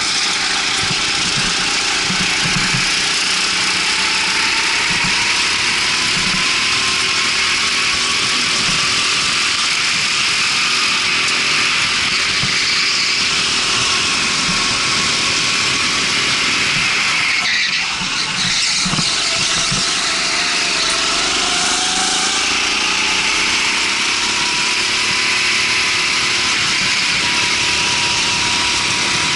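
Rental go-kart engine running at speed on a track, its pitch rising and falling as the kart speeds up and slows for corners, over a steady hiss of noise. There is a brief dip in the sound about 18 seconds in.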